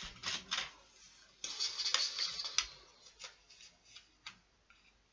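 Rustling and clicking as a small plastic box and paper are handled and opened, dense for the first few seconds, then a few scattered clicks.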